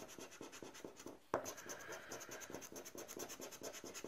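Scratch-off lottery ticket being rubbed, its coating scraped away in quick repeated strokes, several a second, with one sharp tap just over a second in.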